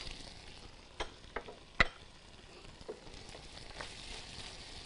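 Liver frying in a pan with a faint steady sizzle while it is stirred, with a few sharp clicks of a utensil against the pan, the loudest nearly two seconds in.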